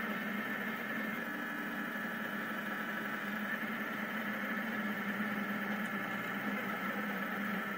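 Rostock delta 3D printer printing, its stepper motors and fans making a steady whirring hum.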